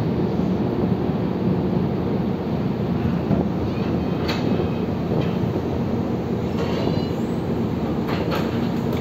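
Steady low rumble of the car ferry's engines running, with a sharp click about four seconds in.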